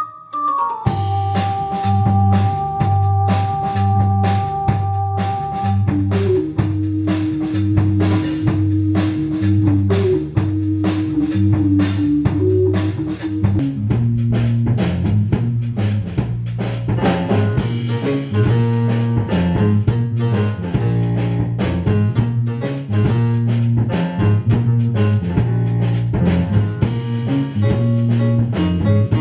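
Instrumental band music, psychedelic dub-rock in style, with a drum kit keeping a steady beat under a repeating bass line. Held keyboard-like tones sound over it for the first six seconds or so, a melody line takes over until about fourteen seconds in, and after that the arrangement grows fuller.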